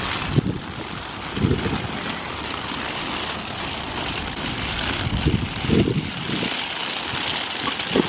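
Wind buffeting the microphone outdoors: a steady hiss with low rumbling gusts, loudest about a second and a half in and again a little after five seconds.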